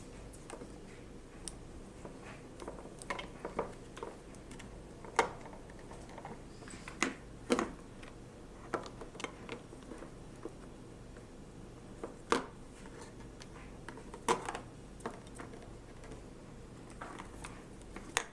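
Scattered light clicks and taps at uneven intervals, the loudest about five, seven, twelve and fourteen seconds in: a green-cheeked conure pecking at and knocking small objects about.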